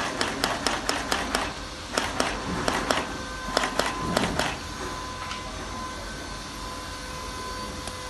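Shoe-making machinery running: sharp clacks and knocks in quick, irregular succession for about the first four and a half seconds, then only a steady machine hum with a high tone.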